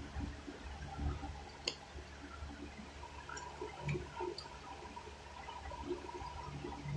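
A few light clicks and rustles from an aluminium foil tray as rice is picked up by hand, over a low rumble.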